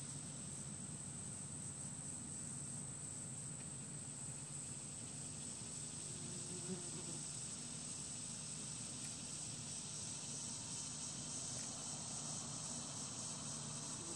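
Outdoor ambience: a continuous high-pitched insect trill over a low steady hum, with a short low buzz about six and a half seconds in.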